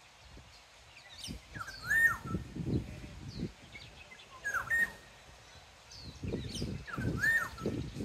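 Black-naped oriole singing a fluid whistled phrase that rises and then falls, three times, two to three seconds apart. Low rumbling noise sounds between and under the phrases.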